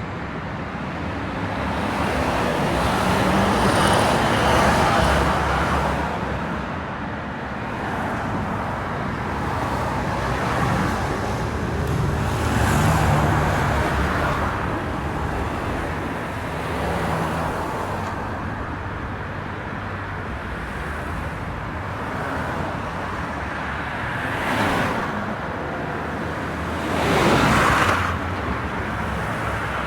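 Busy road traffic: a steady rumble of engines and tyre noise, with cars passing one after another and swelling in loudness, the nearest passes at about four, twelve and twenty-seven seconds in.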